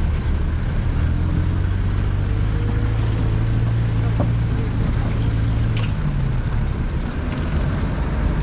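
4x4 vehicle's engine running steadily under load while it drives over rough, rocky ground, with a few sharp knocks from the bumps.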